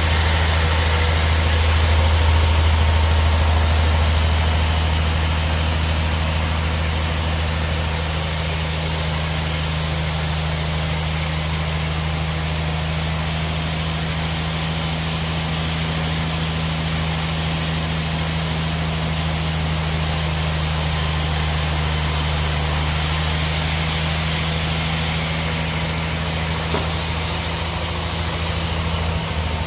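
Band sawmill running: a steady low machine hum with an even hiss over it.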